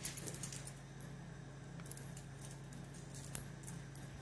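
Light, scattered metallic clinks and jingles of kitchen metalware, with a faint steady low hum underneath.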